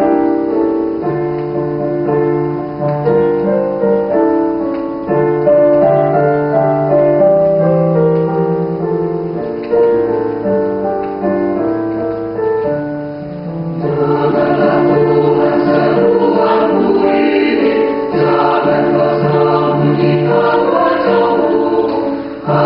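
Mixed choir singing a sacred song in sustained chords, swelling to fuller, louder singing about fourteen seconds in.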